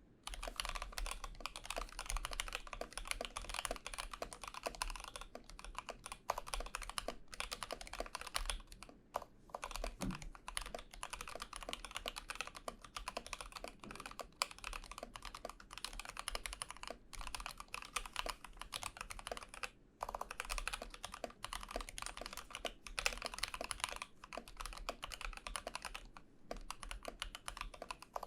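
Typing on a CJ68 mechanical keyboard with C3 Banana Split linear switches: a dense, fast run of keystrokes broken by a few brief pauses.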